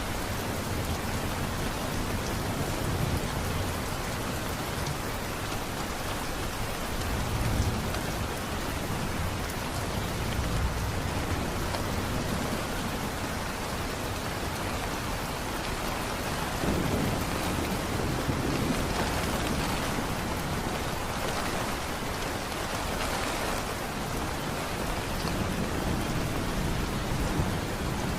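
Steady heavy rain falling, with low rolls of distant thunder swelling up several times, the strongest about seventeen to nineteen seconds in.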